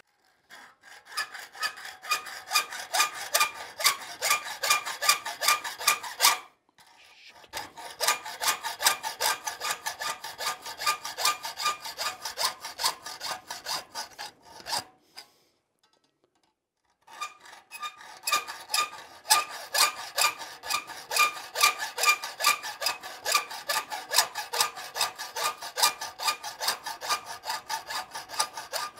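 Hand hacksaw cutting through the rolled steel eye of a forged hinge in quick, even back-and-forth strokes, with a metallic ring on each stroke. It saws in three bouts, stopping briefly twice. The cut is made to take out the center section of the hinge knuckle.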